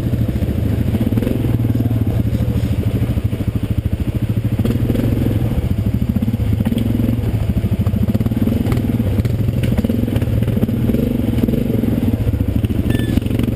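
Yamaha Grizzly 550 quad's single-cylinder engine running at low speed while crawling over a rocky trail, its note swelling and easing slightly every second or two with the throttle.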